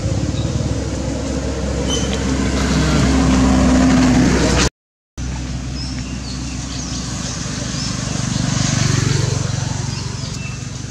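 A motor vehicle's engine running as it passes, getting louder about four seconds in and again about nine seconds in, where its pitch rises. The sound drops out completely for half a second about five seconds in.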